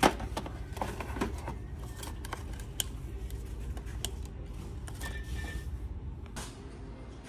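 Quiet shop ambience: a steady low hum with scattered light clicks, and one sharp knock right at the start.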